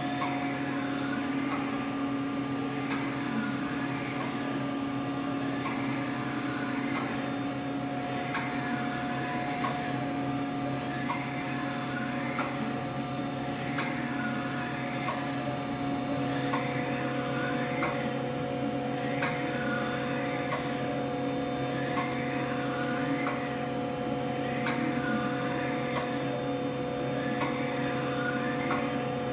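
Haas OM-2A CNC vertical mill running: a steady machine hum with several constant whining tones. Over it, a higher whine rises and falls over and over, about every second and a half. Another steady tone joins about halfway through.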